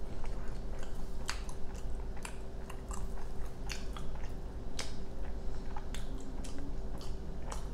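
Close-miked chewing of a soft bite of flour tortilla with guacamole: irregular mouth clicks and smacks, a few sharper ones standing out.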